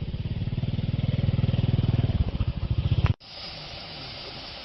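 A small engine running close by with a fast, even pulsing beat that grows louder, then cuts off abruptly about three seconds in. A steady hiss of outdoor background noise follows.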